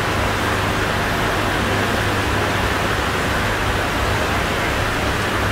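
Steady hiss of background noise with a low hum underneath, unchanging throughout.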